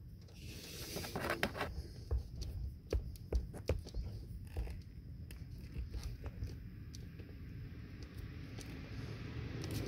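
Hands handling a stripped wire and a plastic butt connector: scattered small clicks, scrapes and rustles, busiest in the first half.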